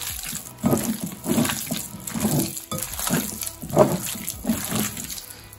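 Wet squelching and squishing of bare hands kneading spice-coated chicken breast pieces in a glass bowl, working the marinade into the meat in uneven squeezes one or two times a second.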